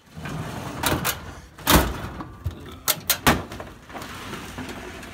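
Wooden cabinet drawers being slid open and shut while tools and cords inside are rummaged through, with several sharp knocks and clatters. The loudest bang comes a little under two seconds in, and a quick run of three follows around three seconds.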